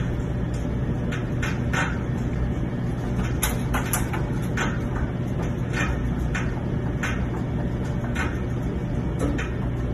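Cat running around inside the perforated steel drum of a front-loading washing machine: irregular light knocks and clicks from its paws on the drum, over a steady low hum.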